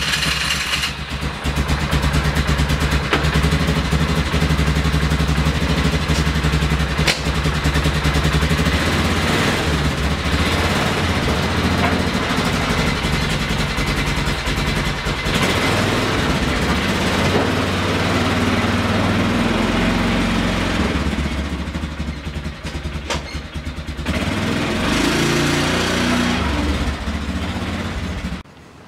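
2000 Polaris Sportsman 500 6x6's single-cylinder four-stroke engine starting and running steadily, now that the owner has worked the bugs out of it. Near the end its sound dips and then rises again as the ATV pulls away, and it cuts off suddenly just before the end.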